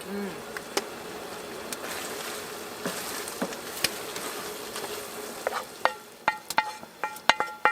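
Food sizzling in a frying pan, a steady hiss; about five and a half seconds in, a quick run of sharp, ringing metallic clinks, like a utensil knocking against the pan.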